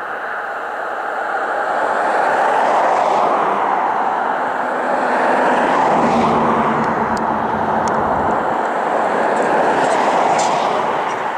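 DC-10 air tanker's three turbofan engines running as the jet rolls down the runway. A loud, steady jet rush swells and eases several times.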